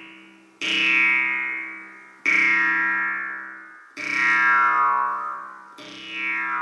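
Jew's harp played solo: a steady low drone, plucked anew four times, each stroke followed by a bright overtone sweeping downward.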